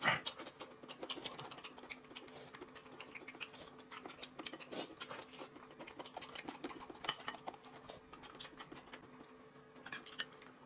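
Close-up eating sounds: a man tearing and chewing a piece of meat held in his hands, a quick, irregular patter of small smacks and crackles.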